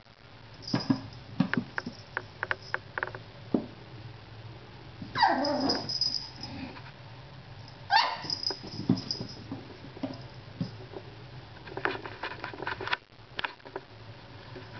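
Papillon puppy yipping and barking at a cat in short, high-pitched bursts, with two longer yelps that fall in pitch about five and eight seconds in.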